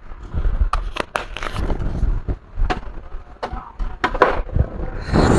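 Scattered clicks, knocks and clatter of a laptop and tools being handled on a workbench, with a short hiss near the end.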